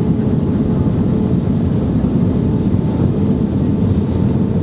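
Airbus A320 cabin noise on approach: the steady drone of the engines and rushing air, heard inside the cabin, with a steady hum running through it.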